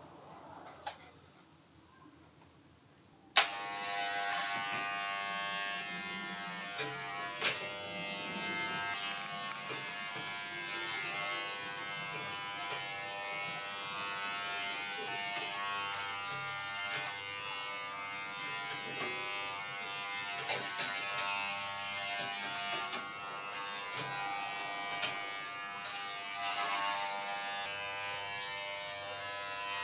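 WAHL Pet-Pro corded electric pet clipper switched on with a sharp click about three seconds in, then running with a steady buzz as it is worked through a small dog's long coat.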